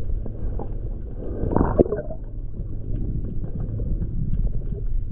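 Muffled underwater rumble picked up by a submerged camera, with scattered small clicks and one short gush of a scuba diver's exhaled bubbles about one and a half seconds in.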